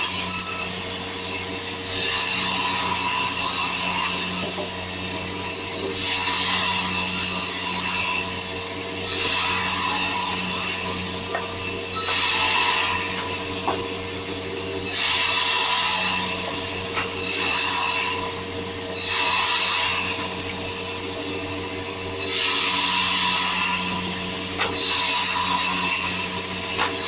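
A powered sawmill saw running with a steady hum, cutting through wood with a louder, hissing rasp that comes and goes every three to four seconds as each cut is made.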